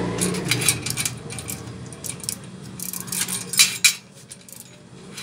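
Bicycle rear wheel being fitted into the frame: a run of light metal clinks and rattles from the axle, chain and steel frame, loudest about three and a half seconds in.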